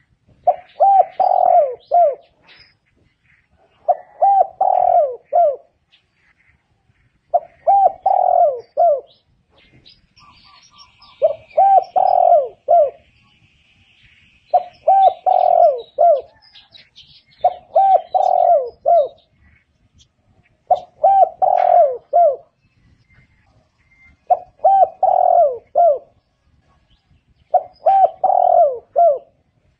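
Spotted dove cooing: a phrase of three or four low coos, about a second and a half long, repeated every three seconds or so. Fainter, higher chirps of small birds come in between the phrases.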